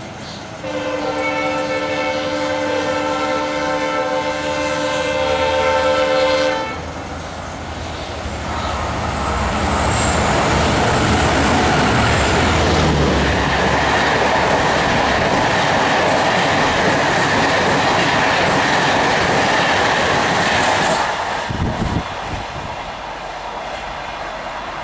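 A WDP-4 diesel locomotive's multi-tone horn sounds one long blast of about six seconds. Then the locomotive and its Shatabdi coaches pass at about 120 km/h, a loud, dense rush of engine and wheel-on-rail noise for about thirteen seconds that drops off sharply near the end as the tail of the train goes by.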